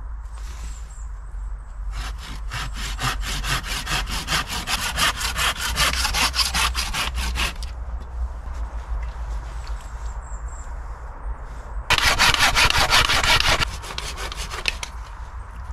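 Japanese pull-saw cutting through wooden poles in quick back-and-forth strokes. A run of about five seconds comes first, then a pause, then a louder burst of about a second and a half near the end.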